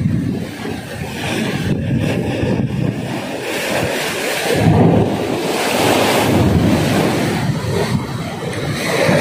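Surf washing against a rocky shore, with wind buffeting the microphone. The rush rises and falls, swelling louder about five seconds in.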